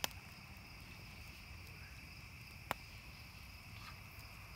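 Crickets chirping steadily in a night-time insect chorus, with two sharp clicks, one right at the start and one a little past the middle.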